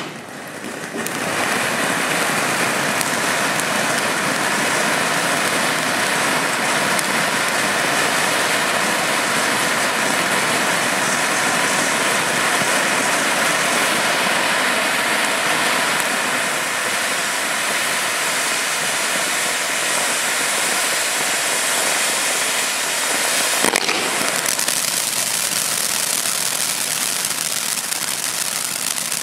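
Bright Star Pegasus ground-fountain firework, several fountain jets spraying sparks with a steady rushing hiss that builds up in the first second. A single sharp bang comes about 23 seconds in.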